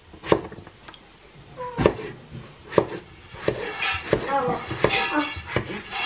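Kitchen knife chopping raw potatoes on a plastic cutting board: irregular knocks of the blade hitting the board, about one a second. Voice-like sounds are heard in the background in the second half.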